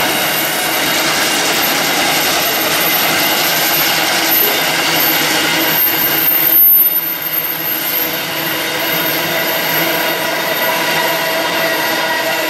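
Container freight train's wagons rolling past, a steady rumble and rattle of wheels and flat wagons with steady squealing tones from the wheels on the rails. A brief louder swell comes about six seconds in.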